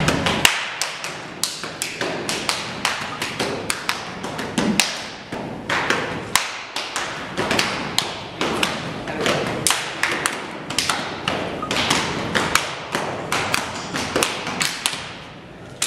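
A rapid, uneven run of sharp slaps and knocks, about three or four a second, from two performers working through a Baranta folk martial-arts routine.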